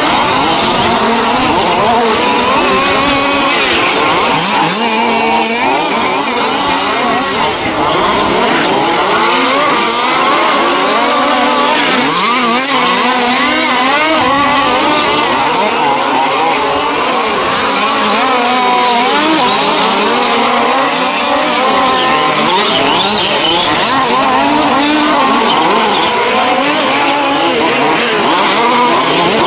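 A pack of 1:5-scale RC off-road cars racing, their small two-stroke petrol engines revving up and down with several overlapping at once.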